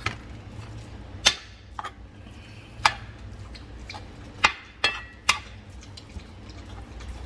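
Metal slotted spoon knocking and scraping against a cast-iron skillet while breaking up raw ground beef: a handful of sharp clinks at irregular intervals.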